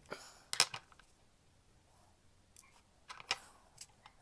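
Sharp, isolated clicks and light metallic taps of small watchmaking tools and parts against the brass plates of a fusee pocket watch movement being taken apart. The loudest click comes about half a second in, with a quick cluster of them a little past three seconds.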